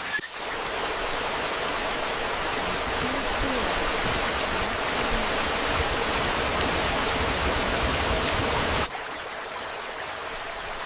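Steady rushing water, a dense even hiss that drops suddenly to a quieter level about nine seconds in.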